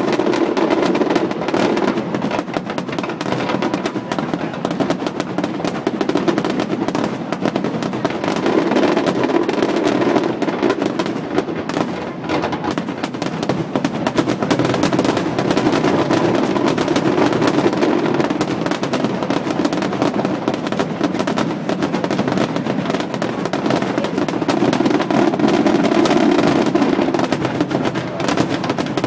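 Fireworks crackling and popping in a dense, unbroken barrage, like strings of firecrackers going off one after another without a pause.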